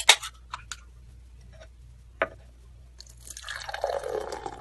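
A few sharp clicks, the loudest about two seconds in, then liquid pouring into a glass from about three seconds in.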